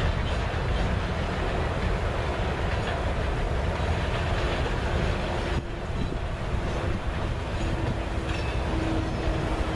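Freight train of tank cars and covered hoppers rumbling steadily past, with a faint steady whine joining in about halfway through.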